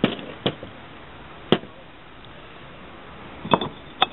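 Wood-fired ceramic cups being handled and set down: five or six short, sharp knocks and clinks of fired clay against the table and a plastic lid, irregularly spaced, with two close together near the end.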